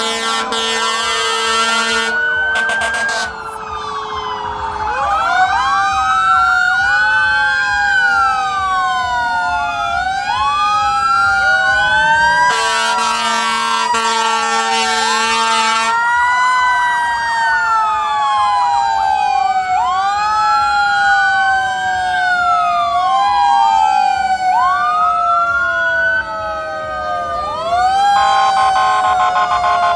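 Fire truck sirens wailing, several rising and falling sweeps overlapping. Long, loud air horn blasts cut in at the start, for a few seconds around the middle, and again near the end.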